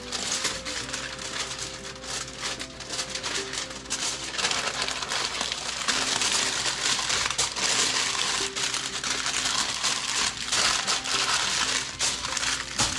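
Sheet of aluminum foil crinkling and rustling as it is folded and rolled around a piece of raw meat, heavier from about four seconds in, over quiet background music.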